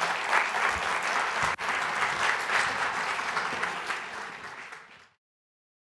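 Audience applauding, a dense patter of many hands clapping that fades and then cuts off to silence about five seconds in.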